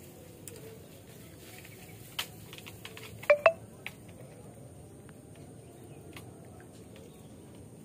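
Faint steady outdoor background with a thin high hiss, a few light clicks, and two sharp, short clicks with a brief ringing tone a little past three seconds in, the loudest sounds.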